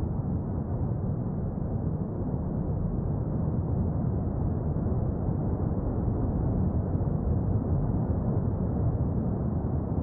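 Erupting La Palma volcano rumbling: a steady, deep, muffled roar with no separate blasts.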